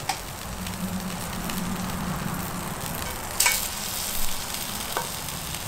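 Wood duck breast sizzling in hot olive oil and butter in a cast iron skillet: a steady frying hiss. Two sharp clicks of metal tongs come about three and a half and five seconds in.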